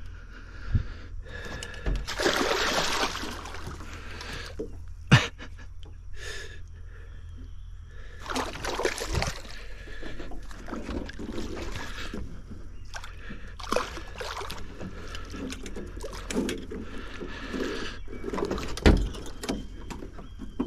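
Water splashing and sloshing at the side of an aluminum boat while a hooked catfish is worked on a trotline, with several sharp knocks on the aluminum hull, the loudest about five seconds in and near the end.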